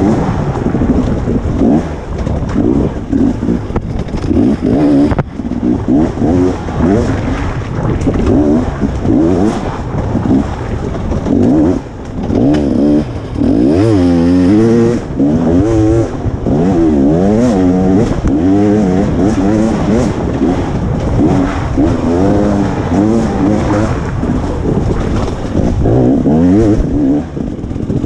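KTM 300 XC two-stroke dirt bike engine ridden hard on a tight woods trail, its revs rising and falling constantly as the throttle is worked on and off, with quick up-and-down blips about halfway through.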